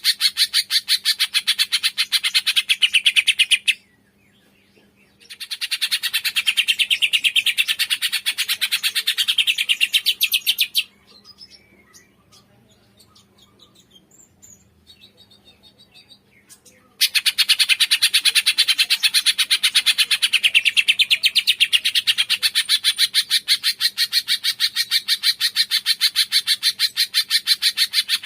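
A cungkok, a songbird kept and trained in Indonesia, singing long runs of rapid, evenly repeated chirps, about four a second. The song breaks off twice, once briefly and once for about six seconds, with only faint scattered notes in the longer pause.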